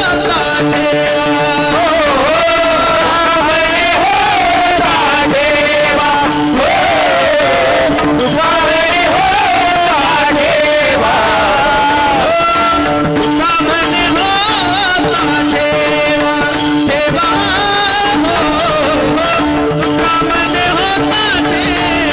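A man singing a Marathi devotional abhang in a wavering, ornamented melody with long held notes, over a steady sustained drone and percussion keeping time.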